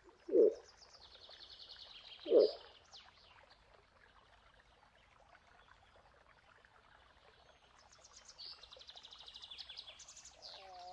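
Moose giving two short, low grunts about two seconds apart. Songbirds trill high and fast in the background, once early on and again near the end.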